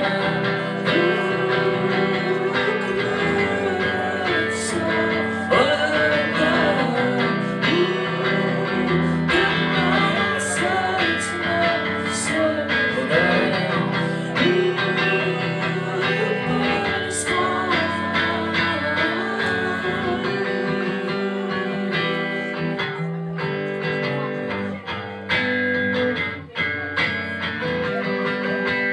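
Live rock band playing: electric guitar and drums, with a male singer's voice over much of it.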